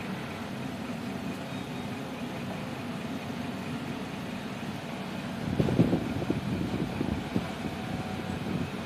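Steady low background hum. From a little past halfway, irregular low knocks and rubbing come from hands working at the table, the loudest at about six seconds.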